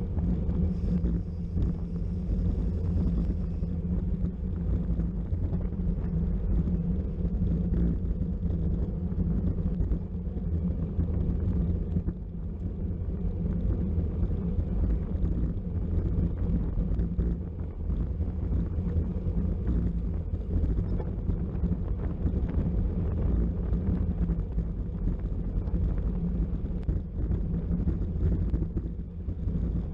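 Steady wind rush over the microphone of a camera carried on a racing bicycle at speed. It is a constant low rumble with no let-up.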